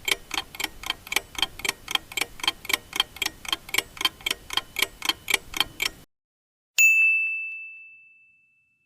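Countdown timer sound effect: quick, even clock-like ticks at about four a second for six seconds, then a single bell ding that rings out and fades, marking that the time to choose is up.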